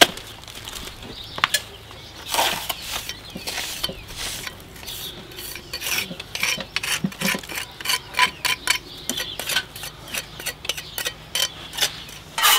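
A steel jointing iron scraping lime-trass mortar off a hand board and pressing it into the joints of a slate rubble-stone wall: a string of short scrapes and small clicks, coming quicker and closer together in the second half.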